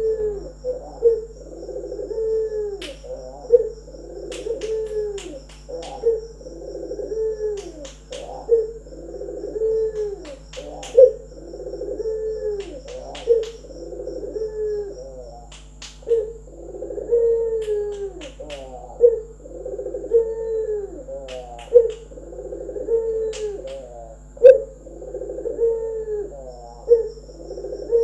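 Barbary dove (ringneck dove) cooing in its display call, a steady run of repeated rolling coos about one a second, with sharp clicks every few seconds.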